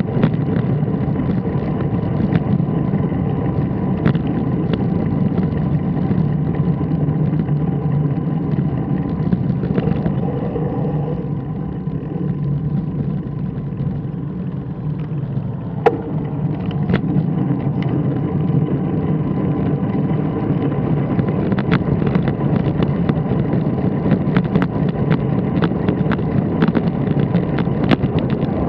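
Steady rumble of road and wind noise on a camera riding along a street, with a faint steady whine and a few sharp clicks, the sharpest about two-thirds of the way through.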